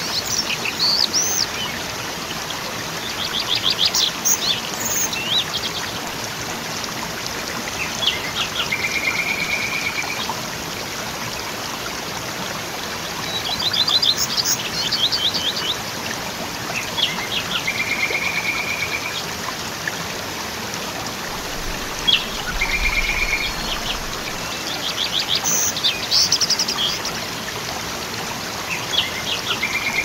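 Waterfall rushing steadily, with songbirds singing over it every few seconds: quick trills and a held one-note whistle.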